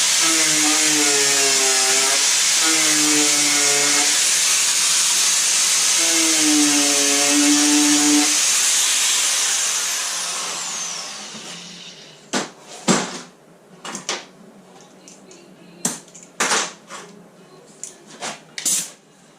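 Angle grinder working on the rusty steel at the bottom of a car door, its pitch wavering as it is pressed into the metal. About ten seconds in it is lifted off and spins down, and a string of sharp knocks and clicks follows as the tool and metal are handled.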